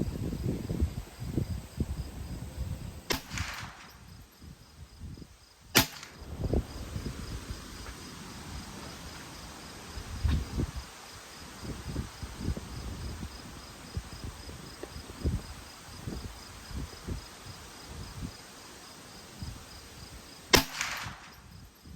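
Three rifle shots fired off a bipod, two about three seconds apart and one near the end. Gusting wind buffets the microphone throughout.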